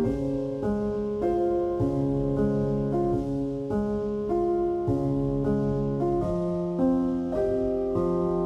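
Background piano music, notes struck one after another at an even, unhurried pace.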